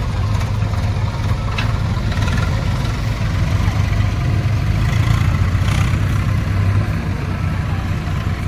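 Tractor diesel engine running steadily while hauling a loaded trolley, a continuous low, loud drone.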